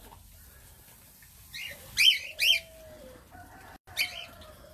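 Aviary birds calling: sharp, quick chirps, the loudest a pair about two seconds in and another near the end, over low drawn-out coos from doves.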